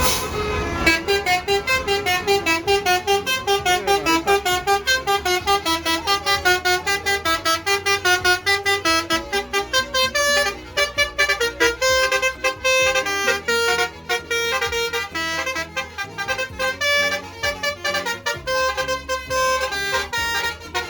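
Bus basuri horn playing a fast tune: a quick run of short, loud, pitched notes, several a second, stepping up and down in melody.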